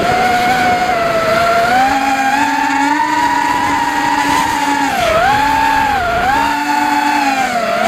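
The brushless motors and propellers of a Realacc XS220 FPV racing quadcopter, run by Racerstar Labs 28A ESCs, whine as heard from the onboard camera. The pitch rises and falls with the throttle and dips sharply three times in the second half. Wind noise runs underneath.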